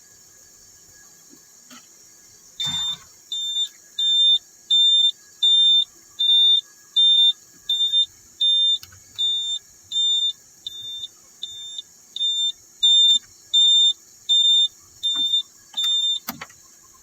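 XCMG XE215C excavator's cab warning buzzer beeping, a short high-pitched beep about one and a half times a second, about twenty beeps in all, after a faint click. It sounds as the key is turned to start while the cluster shows error E4020, a CAN bus communication fault.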